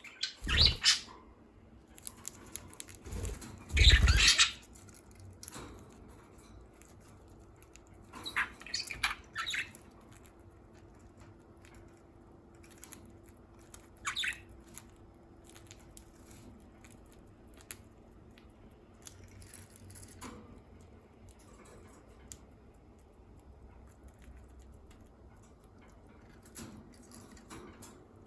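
Pet budgerigars giving short chirps now and then, with bursts of wing flapping, the loudest about four seconds in, and scattered small clicks and taps between them.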